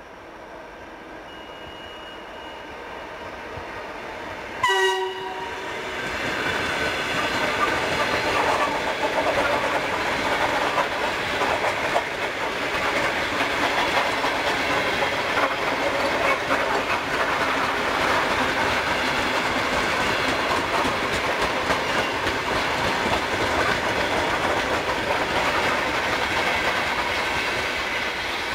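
Suburban electric multiple-unit train giving one short horn blast about five seconds in, then running past close by with its wheels clattering over the rail joints. The noise swells as it arrives and stays up while the long train goes by, easing slightly near the end.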